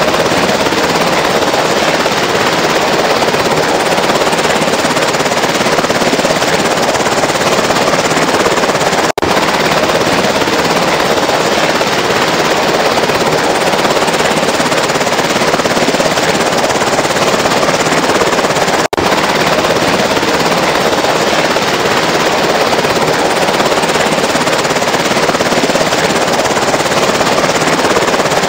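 MV-22 Osprey tiltrotor's twin turboshaft engines and rotors running, a loud, steady, dense noise that cuts out for an instant twice.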